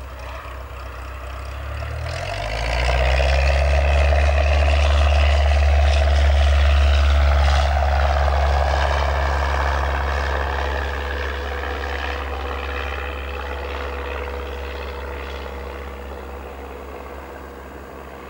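Cessna 172's single piston engine and propeller going to takeoff power on the roll of a touch-and-go. The hum swells and rises in pitch about two seconds in, is loudest for a few seconds, then fades steadily as the plane climbs away.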